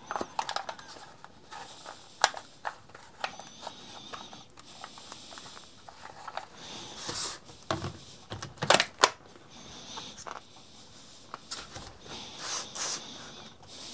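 Hands handling a lithium-ion power-tool battery and its rubber protective cover: scattered plastic clicks, rubs and knocks, with a few louder knocks in the middle. Near the end the battery is fitted onto a cordless finishing sander, with a short run of knocks.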